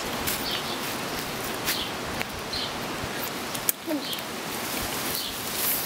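Steady outdoor noise, a rustling hiss, with scattered short high chirps and a few faint clicks.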